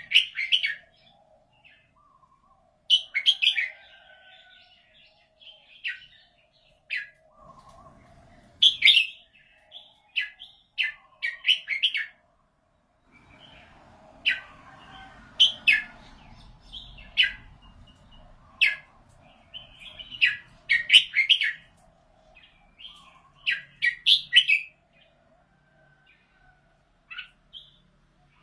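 Red-whiskered bulbul singing: short, bright, warbling phrases repeated every second or two, with brief pauses between bouts.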